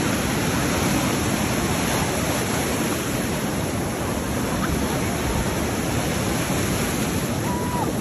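Ocean surf breaking and foaming over shallow water at a sandy beach, a steady rushing wash.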